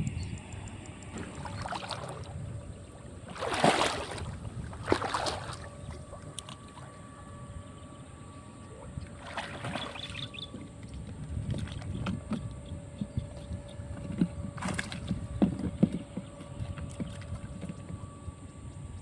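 Shallow water sloshing and splashing in a few sharp bursts, the loudest about four and five seconds in, over a low steady rumble and a faint steady hum.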